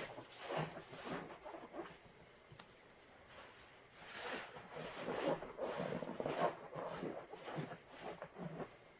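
Sponges loaded with thick cleaner suds are squeezed in rubber-gloved hands, giving wet squelches and foam crackle in repeated squeezes. There is a lull of about two seconds a couple of seconds in.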